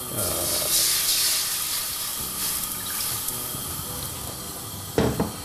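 Hot water poured into a cooking pan, a rushing, splashing pour that is strongest for the first two seconds and then runs on more softly. This is the water for steam-cooking the chicken before any oil goes in.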